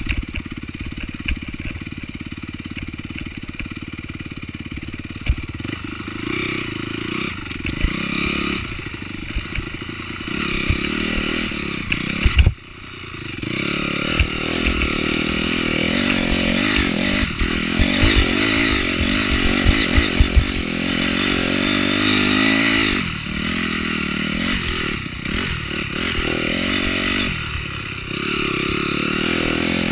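Honda CRF250R single-cylinder four-stroke dirt bike engine under riding load, its note rising and falling with the throttle, over frequent knocks and rattles from the bike. About twelve seconds in there is a loud knock, then the engine note drops away and builds again over a couple of seconds.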